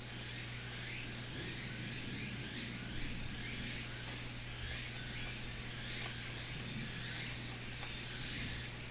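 Rural outdoor ambience: repeated chirping animal calls and a steady high drone over a low steady hum.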